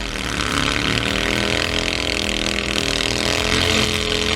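A petrol engine running steadily at high revs, its pitch sagging slightly in the first second and then holding.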